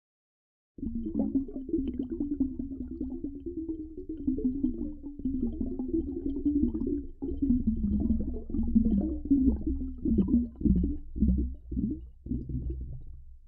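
Underwater ambience: a low rumble with dense bubbling and gurgling, cutting in abruptly less than a second in after dead silence, and turning more broken and pulsing near the end.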